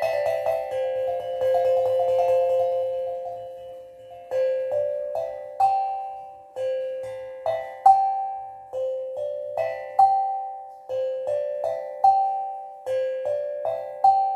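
Steel tongue drum played slowly: ringing notes from earlier fade out over the first four seconds, then single struck notes follow one after another, each ringing and dying away, in a slow, gentle melody.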